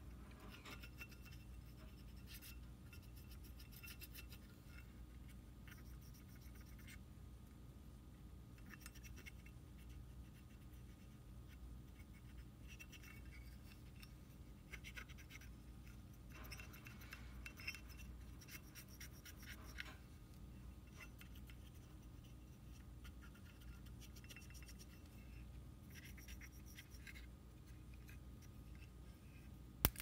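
Faint, intermittent scratching of a wooden stick scraping grime from inside the metal case of a 1969 Zippo lighter, over a low steady hum.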